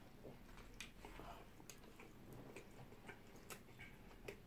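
Faint chewing of a shawarma wrap: irregular soft mouth clicks and smacks as a bite is chewed.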